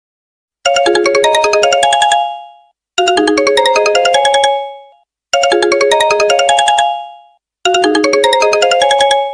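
Mobile phone ringtone: a short electronic melody, a quick rising run of notes ending in held tones that fade out, played four times with brief gaps between.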